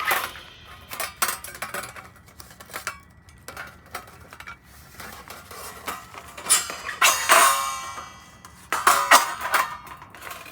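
Metal parts of a folding fire pit clinking and clattering as they are handled, with a few sharper strikes that ring briefly.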